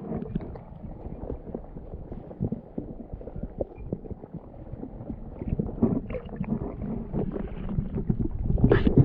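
River water sloshing and splashing close to the microphone, irregular and low-pitched, with many small knocks and a louder splash near the end.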